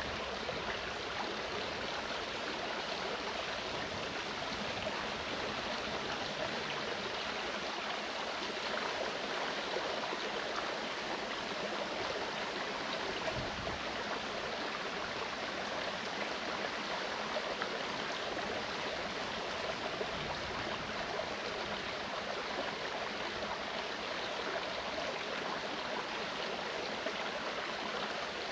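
Mountain stream running steadily, an even rush of flowing water.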